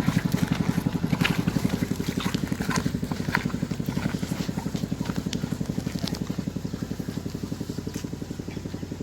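A small engine running at a steady, fast, even beat, slowly growing fainter, with a few faint clicks over it.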